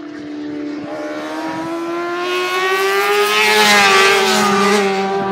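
Racing motorcycle approaching and passing at full speed, its engine note growing to its loudest about four seconds in, then falling in pitch as it goes away.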